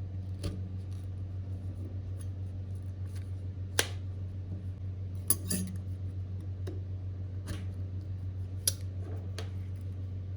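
Small metal repair tools clicking and tapping sharply every second or two, over a steady low hum.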